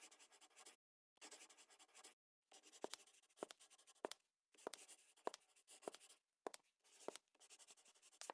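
Faint scratching of a pen writing on paper, in short strokes with gaps, with a few sharp ticks among them.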